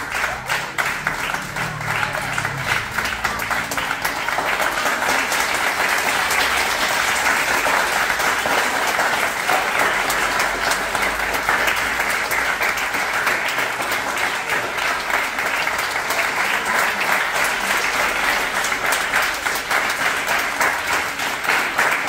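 Audience applauding: sustained dense clapping from a seated crowd, growing a little louder a few seconds in and holding steady.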